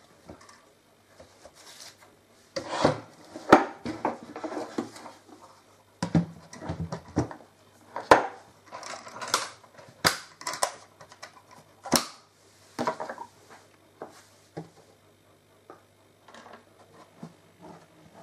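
Wooden sewing machine case being handled and fitted together: a run of sharp knocks, bumps and scrapes of wood, busiest in the first two thirds, then a few lighter taps, over a faint steady low hum.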